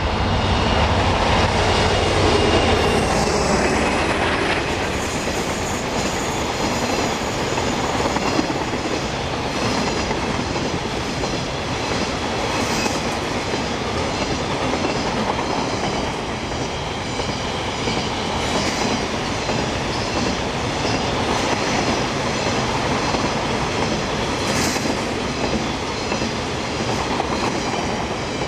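Freight train passing close by: the locomotive's low rumble is loudest in the first few seconds, with a faint wheel squeal, then a long rake of double-deck car-carrier wagons rolls past with steady wheel clatter and an occasional sharp click from the rail joints.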